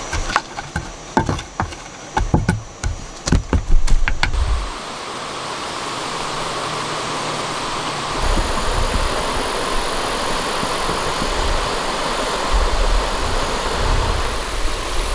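A wooden digging stick stabbing and scraping into sandy soil, a quick irregular run of strikes for about four seconds. Then a steady rushing of running stream water, with a low rumble joining in about eight seconds in.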